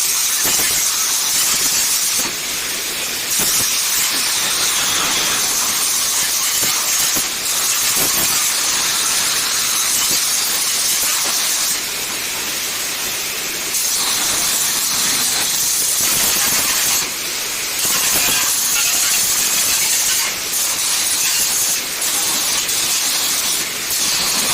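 Angle grinder grinding the welds on a steel gate: a steady, loud, high hissing grind of disc on metal that eases off briefly every few seconds.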